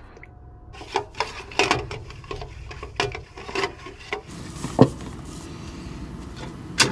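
Irregular knocks, taps and rubbing from pizza dough being pressed into a cast-iron skillet and an aluminium pizza pan being handled on a gas stove's metal grates, with one sharper knock about five seconds in.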